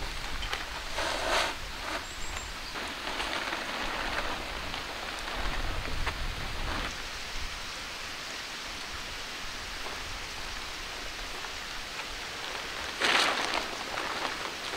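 Plastic tarp rustling and crinkling as it is hung and adjusted by hand, with louder bursts about a second in and again near the end.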